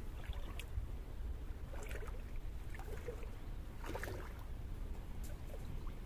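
Shallow river water sloshing and splashing as a person wades in barefoot, in several separate splashes, over a steady low wind rumble on the microphone.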